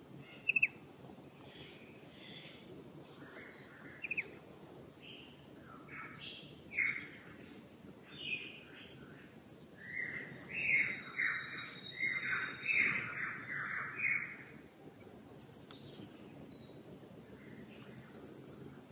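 Several wild birds calling and singing in the dawn chorus, with a run of louder calls about halfway through and quick high-pitched chirps near the end.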